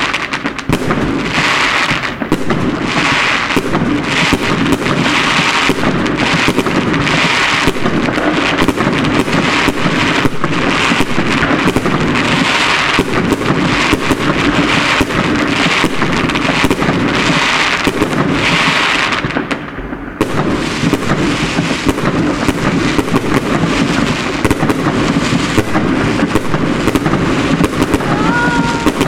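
Aerial fireworks going off in a dense, continuous barrage of bangs and crackling, with a brief lull about two-thirds of the way through before the bangs resume.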